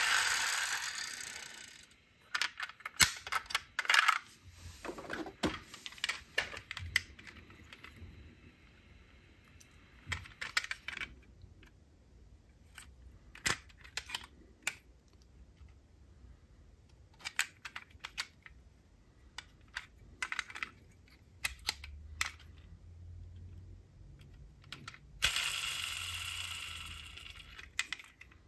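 Diecast metal model cars and their boxes being handled: irregular small metallic and plastic clicks and taps, with a longer scraping noise at the start and another about three quarters of the way through.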